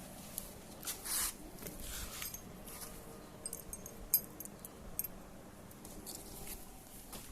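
Scattered light clicks and metallic clinks of hand tools and small metal parts being handled, with a quick run of ticks about halfway through.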